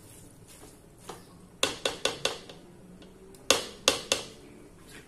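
Spoon knocking against the side of a large aluminium pot while stirring spaghetti: a quick run of four knocks about a second and a half in, then three more near the middle.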